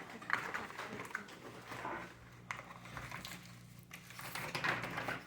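Clicks, knocks and rustles of plastic toy-oven parts and packaging being handled, over a faint steady low hum.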